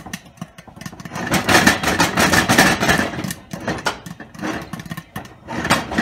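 Popcorn popping and rattling inside a lidded stainless steel pot shaken on a gas stove's burner grate, a dense clatter of clicks and metal-on-metal rattling that comes in uneven bursts, loudest a second or two in.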